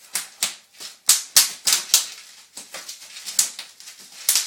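Bubble wrap popping underfoot: about a dozen sharp, irregular pops, some in quick pairs.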